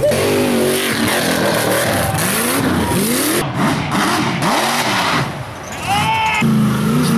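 Off-road rock bouncer buggy engines revving hard, the pitch rising and falling again and again as the throttle is worked. About six seconds in there is a brief high-pitched scream of revs.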